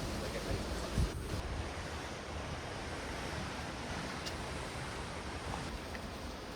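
Steady wash of ocean surf with wind rumbling on the microphone, and a brief low thump about a second in.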